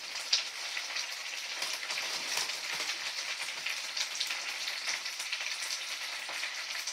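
Spinach and onions frying in olive oil in a pan: a steady sizzling hiss with many small scattered crackles as a whole bag of fresh spinach cooks down.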